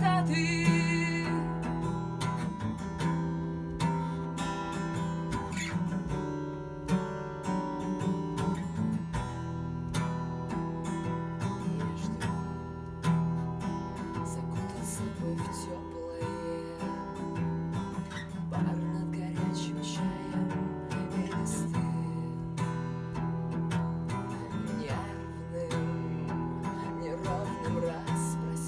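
Acoustic guitar strummed steadily, with a woman singing along at times.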